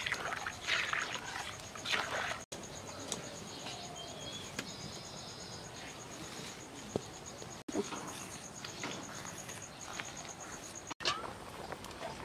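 An insect chirps in a steady, rapid, even pulse, with a few short bird calls. In the first couple of seconds a metal ladle scrapes and knocks as it stirs a pan of boiling dal.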